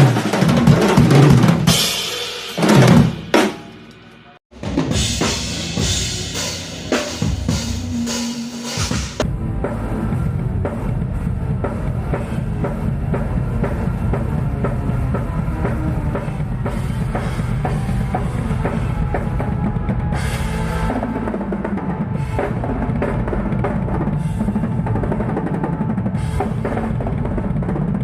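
Rock drum kit played hard during a stage sound check: busy fills with cymbals, cut off briefly about four seconds in. Then comes a long, even run of fast bass drum strokes with little cymbal.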